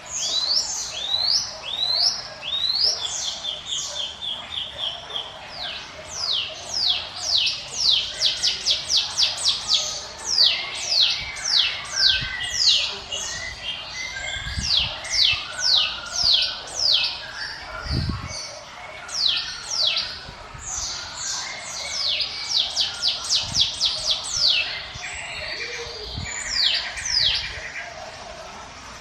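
Cucak gunung (orange-spotted bulbul) singing: long runs of rapid, sharply falling whistled notes, several a second, broken by a short buzzy trill about three seconds in and a rattling trill near the end. A brief low thump about eighteen seconds in.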